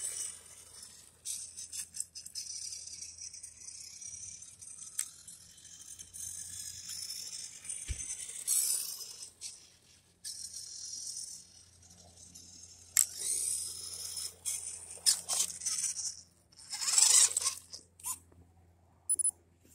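WPL C24-1 two-speed RC truck running on asphalt on a 3S battery: a thin, high whine from its small electric motor and gears that comes and goes as it passes. Near the end there are short bursts of rattling and crunching on gravel.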